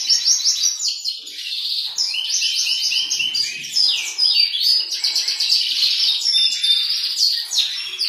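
Caged songbirds singing: a continuous run of fast chirps, trills and short whistled glides, overlapping as if from more than one bird.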